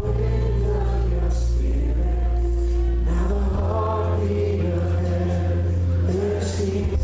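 Live worship music: voices singing over held low bass or keyboard notes, with the chord shifting about halfway through.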